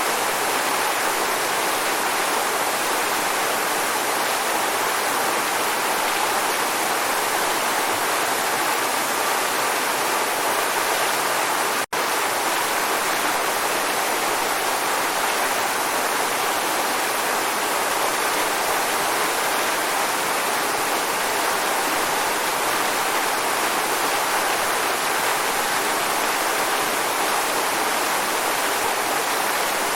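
Waterfall: a steady, even rush of falling water, with a split-second dropout about twelve seconds in.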